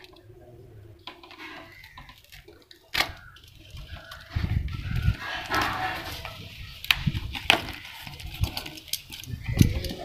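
Taped cardboard parcel being handled and opened with a snap-off utility knife: rustling and scraping of cardboard and packing tape, broken by several sharp clicks.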